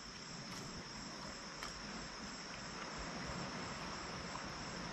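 Night insects chirping steadily, a continuous high, rapidly pulsing trill.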